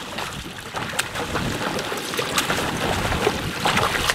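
A hooked lake trout thrashing and splashing at the surface close to shore, in several sharp splashes about a second apart, over lapping water and wind on the microphone.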